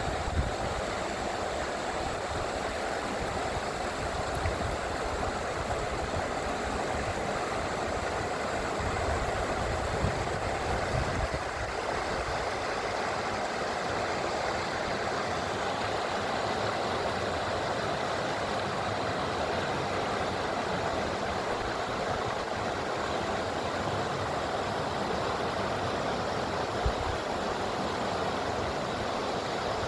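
The Tarn river running over stones: a steady, even rush of flowing water.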